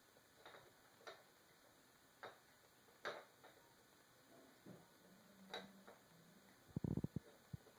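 Sparse, irregular faint clicks of a cat batting a three-armed spinner toy on a wooden floor, with a quick run of louder soft thumps near the end.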